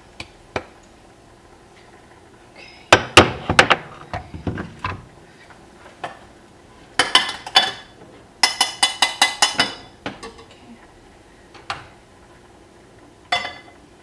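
Kitchenware clinking and clattering: a few scattered knocks of dishes and utensils, then a quick run of about eight ringing taps, metal on a dish, a little past the middle.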